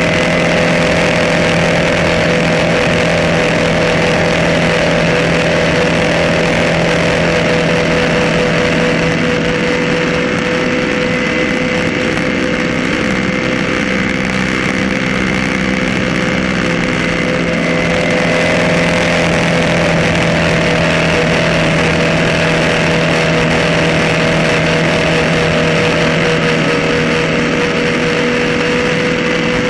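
Ski race boat's engine running flat out at high speed, a steady engine note over the rush of the wake and spray. The note wavers a little about halfway through, then settles again.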